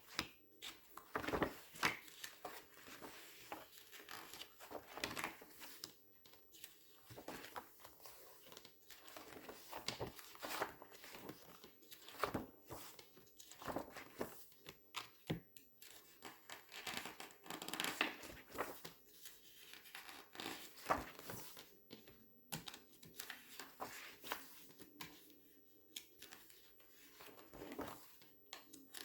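Glossy paper pages being turned and squeezed, crinkling and rustling in irregular strokes.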